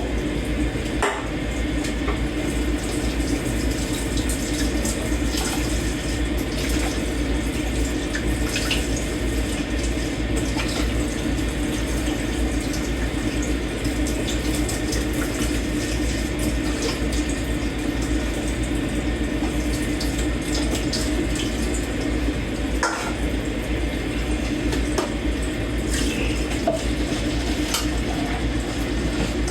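Kitchen tap running into a sink while dishes are washed by hand, with a few sharp clinks of dishes and cutlery scattered through it.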